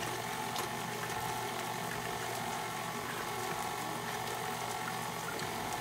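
KitchenAid Ultra Power stand mixer running steadily at low speed, its flat beater turning through thick pancake batter in a steel bowl.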